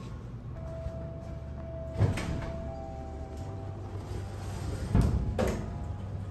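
Elevator car running, with a sharp thump about two seconds in, then the elevator's sliding doors opening, and a louder thump about five seconds in.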